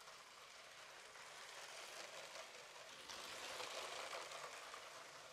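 Battery-powered LEGO City passenger train (set 60197) running along plastic track: a faint whirring rattle that grows louder as the train passes about three seconds in, then eases off.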